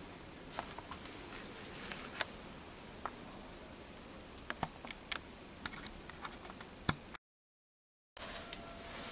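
Faint, irregular small clicks and ticks over a steady low hiss, with a brief dropout to complete silence about seven seconds in.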